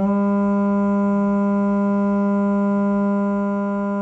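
Steady low test tone at 201 Hz from a phone tone-generator app, played through a small portable speaker; it steps up a little in pitch at the start and sounds harsh rather than pure. It gets slightly quieter near the end.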